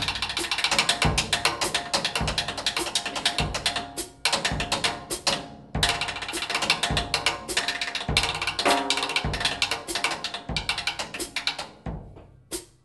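Jazz drum kit playing alone: fast ticking on the cymbals, with a bass drum thump about once a second. The drumming stops briefly twice in the middle and fades out near the end.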